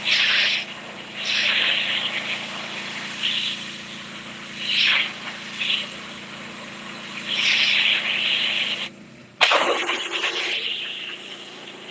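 Simpson 4200 PSI gas pressure washer, its engine running steadily while the high-pressure jet hisses loudly in repeated bursts against concrete steps. About nine seconds in, the sound cuts out briefly and comes back abruptly.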